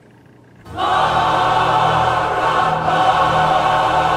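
Background choral music: a choir comes in suddenly less than a second in and holds long, sustained chords.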